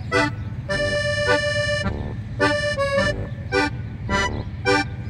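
Background music: a bouncy tune of short repeated chords with a few longer held notes.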